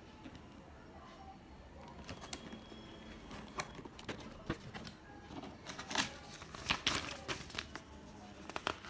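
Cardboard box being handled and opened by hand: flaps scraping and tapping, with paper rustling as a booklet is lifted out. Irregular scrapes and clicks, busiest and loudest about two-thirds of the way through.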